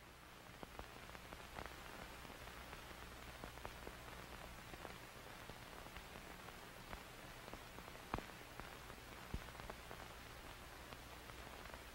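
Faint steady hiss over a low electrical hum, with scattered crackles and clicks, one sharper click about eight seconds in.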